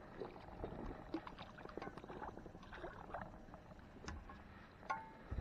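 Faint rustling and scattered light clicks and taps of an angler's clothing and gear as a hooked crappie is brought up to the side of a boat, with one sharper click near the end.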